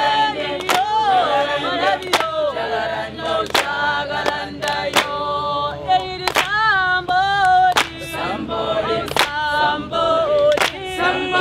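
Soundtrack music: a choir singing a cappella in several voices, over a sharp beat about every second and a half.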